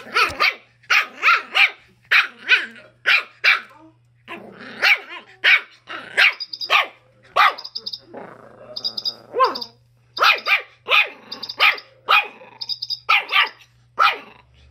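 Schipperke puppy barking repeatedly, about two sharp barks a second, with a few brief pauses.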